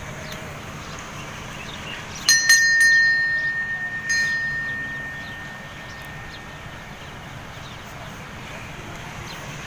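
A temple bell of metal is struck several times in quick succession about two seconds in, then once more about two seconds later. Its clear, high ring fades away over several seconds.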